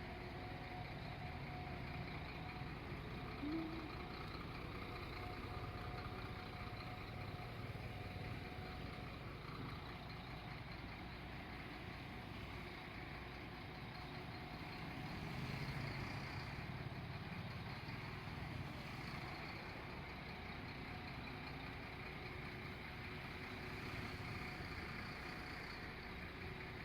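Heavy truck engines running steadily at a constant idle-like speed, with a brief short squeak about three seconds in and a slight swell in level around the middle.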